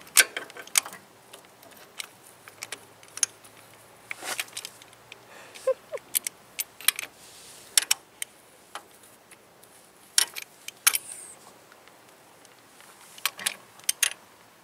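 Irregular sharp metallic clicks and clinks of a 19 mm socket wrench being worked on a drain plug of a Ural motorcycle, tightening it down with a new washer.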